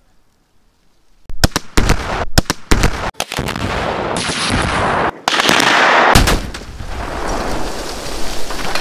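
Tannerite charges detonating under two junk cars: a string of sharp, loud blasts with abrupt cut-offs between them, as if replayed from several angles, then a long loud rush of noise that slowly dies away.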